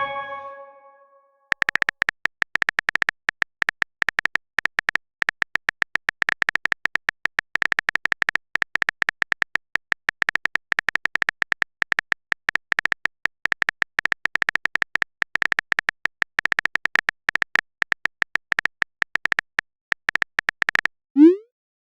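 A short multi-note message chime fading out. Then a long, fast run of on-screen keyboard typing clicks, and near the end a brief rising whoosh like a message-sent sound.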